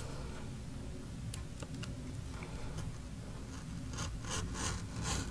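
Craft knife blade drawn along a metal ruler, slicing through lightweight kraft paper in short scraping strokes: a few about a second and a half in, then a longer run of them about four seconds in.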